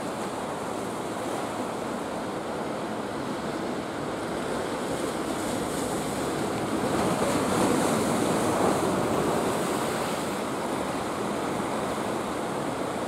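Sea surf washing in at the shore, a steady rushing noise that swells louder for a couple of seconds in the middle.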